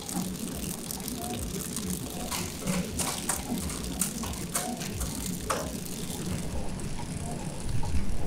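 Candy flow-wrapping machine running: a steady mechanical whir with a faint squeak about every second and a half and a scatter of sharp clicks and ticks in the middle seconds, growing louder and busier near the end.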